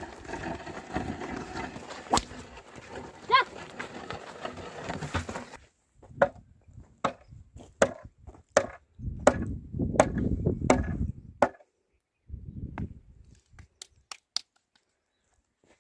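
Outdoor ambience, then a run of sharp, separate knocks about one a second, like wood or a tool striking.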